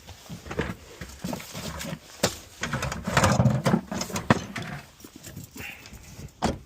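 Irregular knocks and clinks from handling metal gas pipe fittings and tools, with a busier stretch of rubbing and clattering around the middle.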